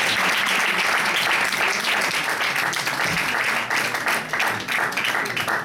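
Audience applauding, a dense patter of many hands that thins out into separate, scattered claps near the end.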